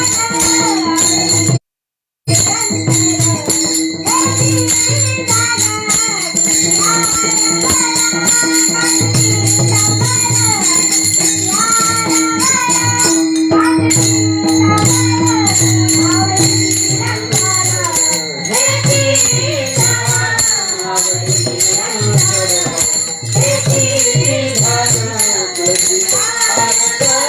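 Marathi devotional kirtan singing (panchapadi) by a woman, with a melody that rises and falls over a held drone, repeated drum beats and jingling percussion. The sound drops out briefly about two seconds in.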